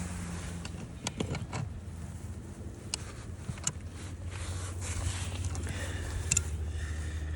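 An engine running at a steady idle, with scattered clicks and knocks of equipment being handled.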